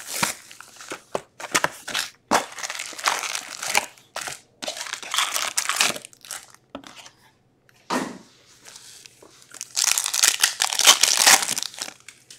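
Plastic and foil wrapping crinkling and tearing in irregular bursts as a hockey card box and its packs are opened, loudest near the end.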